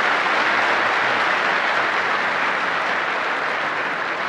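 A large audience applauding together in a big hall: dense, steady clapping that eases off slightly toward the end.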